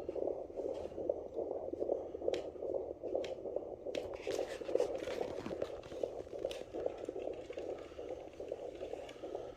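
Handheld fetal Doppler's speaker giving the rapid pulsing of a baby's heartbeat, around 145 beats a minute. A few sharp clicks come early, and scratchy noise from the probe moving over the gel comes around the middle.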